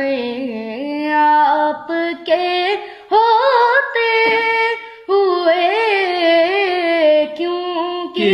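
A boy's high voice singing an Urdu naat solo, in long ornamented held lines whose pitch bends and wavers, with brief breaks about three and five seconds in.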